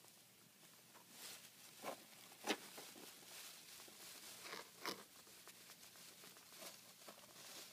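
Pet hedgehog burrowing through loose shredded bedding: faint, scattered rustles and crackles, with a few sharper crunches about two, two and a half and five seconds in.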